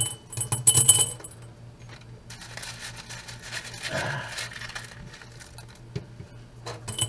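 Handfuls of small gravel stones dropped into a jar, clinking and ringing, with gravel rattling and scraping softly in a plastic colander as a hand scoops through it in between. A fresh run of clinks comes near the end.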